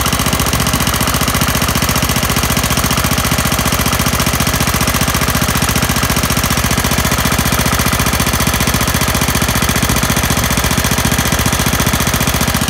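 Lawn mower's air-cooled vertical-shaft engine running steadily and loudly at close range with a fast, even pulse, warmed up after 10–20 minutes of running. Its cracked aluminum block has been patched with JB Weld, and it shows no sign of trouble.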